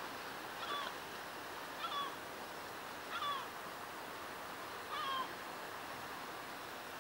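A bird calling four times, a second or two apart, each call short and dropping in pitch at the end, over the steady hiss of the sea. The calls stop about five seconds in.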